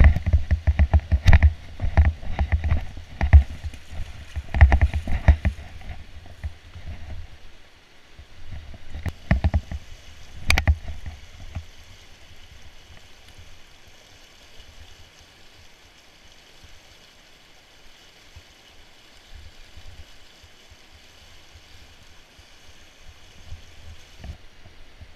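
Fast river current rushing over whitewater. Loud, dense rumbling knocks on the microphone sit over it for the first six seconds and again around ten seconds in, then die away, leaving the steady rush of the water.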